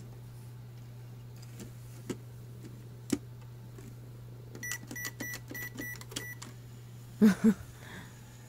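Just Like Home toy microwave: a couple of plastic clicks, then its keypad beeps about seven times in quick succession, roughly four beeps a second, as the buttons are pressed to start it. Two short, louder sounds follow near the end.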